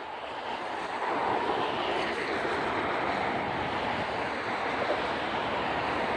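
Deutsche Bahn ICE electric high-speed train passing, a steady rushing of wheels on rails that grows louder about a second in.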